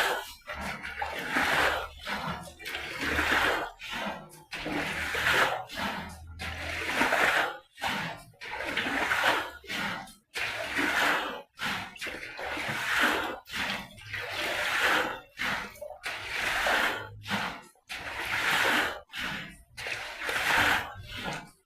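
Standing water being pushed out by hand in repeated strokes, a splashing rush about once a second.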